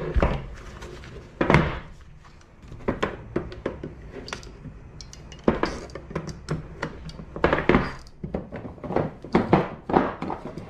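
Freshly cast lead fishing sinkers being pulled out of a sinker mould and handled on a workbench: a series of irregular knocks and clinks, loudest about one and a half seconds in and thickest in the second half.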